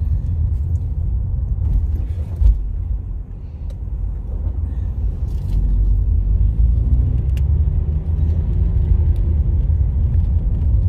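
Car driving, heard from inside the cabin: a steady low rumble of engine and road noise, with a single knock about two and a half seconds in. Later the engine note rises for a couple of seconds.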